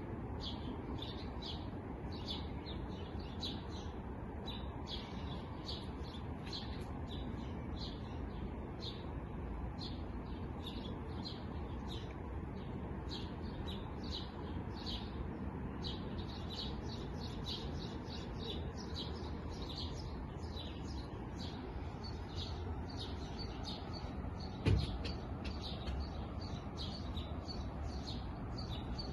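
Small birds chirping continuously in short, high, rapidly repeated notes over a steady low background rumble. A single sharp thump comes near the end.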